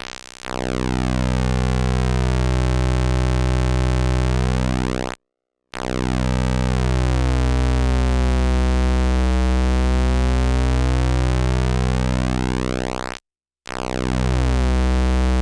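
Analog square-wave oscillator with its pulse width swept by hand: a low buzz of steady pitch whose tone keeps shifting between hollow and thin and nasal. The sound cuts out briefly twice, about five and thirteen seconds in, as the pulse width is turned to its extreme.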